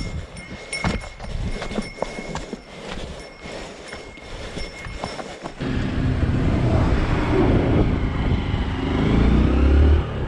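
Scattered light clicks and knocks, then, after an abrupt change about halfway through, a vehicle engine running loud and low, rising in pitch near the end as it revs up.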